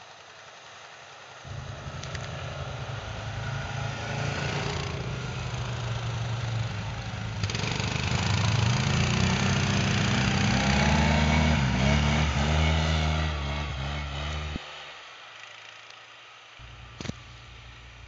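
Quad-bike (ATV) engines running as the machines ride past over snow, building up to a loud peak with the revs rising and falling, then cutting off suddenly. A single sharp click near the end.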